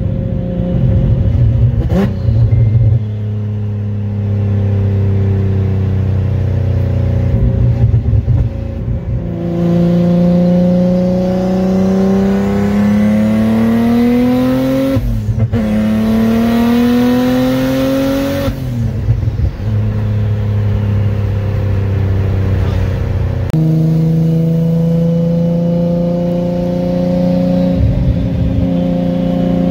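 The turbocharged 3.5-litre V6 of an Infiniti G35, heard from inside the cabin. It cruises steadily, then pulls hard from about ten seconds in, its pitch climbing, with turbo spool hiss. It upshifts briefly around fifteen seconds and pulls again until about eighteen seconds, then eases back to a steady cruise.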